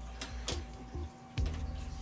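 Plastic snap clips of an LED TV's outer bezel clicking as it is pried loose by hand, a few light clicks.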